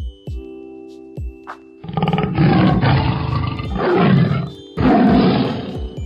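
Music with a few thuds, then two long, loud animal roars, the first about two seconds in and the second near the end.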